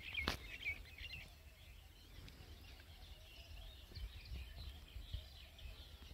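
Faint birdsong: many quick, high chirps, thickest in the first second and again a little past the middle, over a low steady rumble, with one sharp click near the start.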